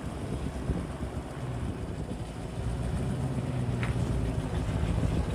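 Feed truck's engine running at low speed as it creeps along a feed bunk delivering feed, a steady low hum that grows louder as the truck comes closer.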